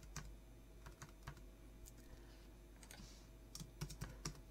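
Faint typing on a computer keyboard: irregular single keystrokes, quickening into a short run of taps near the end.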